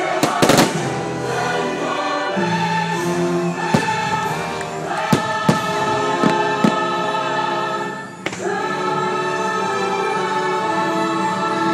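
Fireworks show soundtrack: a choir singing long held notes over orchestral music. Sharp firework bangs cut through it, loudest about half a second in and several more between about four and eight seconds in.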